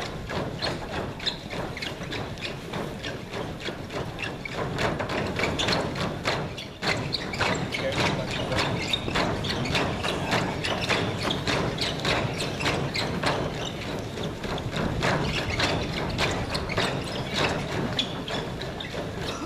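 Dozens of dancers in trainers jumping together on a stage floor, their landings making a rapid, continuous run of thuds.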